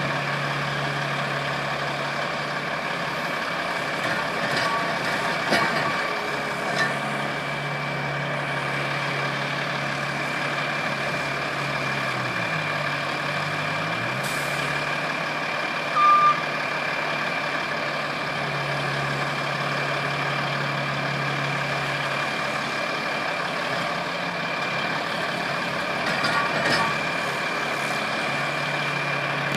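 Engines of a skid steer loader and a truck running steadily, with a steady high whine over them; the engine pitch dips and rises once near the middle. A few metallic clanks come in two clusters, and one short loud beep sounds a little past halfway.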